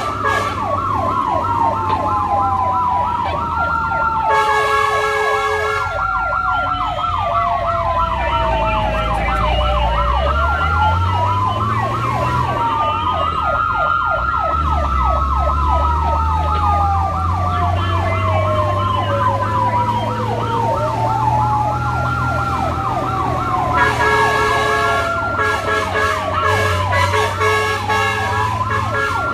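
Emergency siren of a responding fire-and-rescue vehicle, sounding a fast yelp and a slow rising-and-falling wail at the same time. A steady horn blast comes about four seconds in, and more blasts come near the end. Underneath, the low sound of a vehicle engine rises as it speeds up around ten seconds in.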